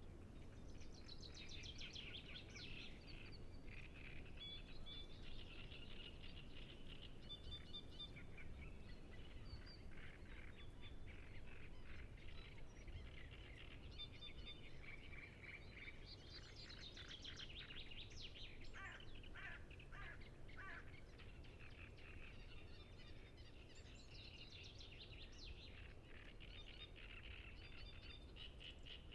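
Great reed warblers singing: faint, repeated harsh chattering phrases, one after another, over a low steady background rumble.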